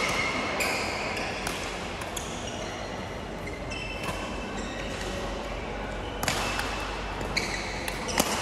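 A badminton doubles rally: several sharp racket-on-shuttlecock hits about a second apart, with a gap in the middle, and short squeaks of court shoes on the sports floor, echoing in a large hall.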